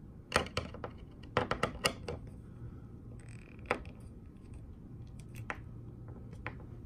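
Screwdriver working the adjustment screw on a sliding closet door's metal roller hanger bracket, making a series of sharp metallic clicks as the slotted bracket is loosened and shifted down. The clicks come in a quick cluster in the first two seconds, then singly a few times after.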